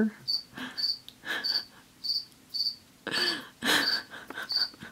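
A cricket chirping steadily, one short high chirp about twice a second. About three seconds in come two louder, short breathy noises.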